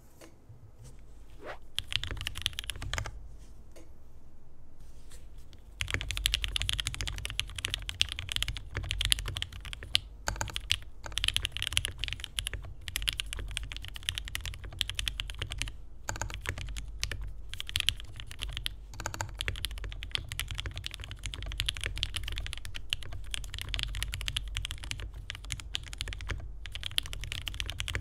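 Typing on a foam-stuffed, o-ring-mounted 60% mechanical keyboard in a zebrawood case, with Durock L linear switches (62 g), an aluminium plate and GMK keycaps: keystrokes with a deep, snappy clack. A few scattered keystrokes at first, then continuous fast typing from about six seconds in.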